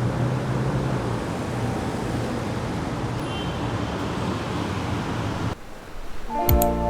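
Steady road-traffic or vehicle running noise, a low hum under an even rush, that cuts off suddenly about five and a half seconds in. Soft background music begins near the end.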